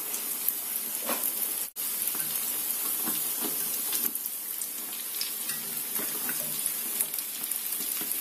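Yeast-dough pirozhki frying in vegetable oil in a cast-iron skillet: a steady sizzle with scattered small pops and crackles, and light clicks of forks turning the pies. The sound cuts out for an instant about two seconds in.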